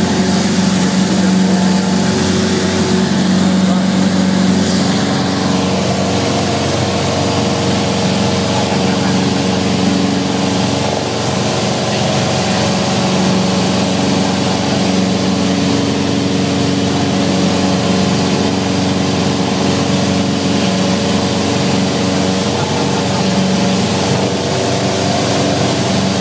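Piper Warrior's four-cylinder Lycoming engine and propeller running in a steady, loud drone, heard from inside the cabin.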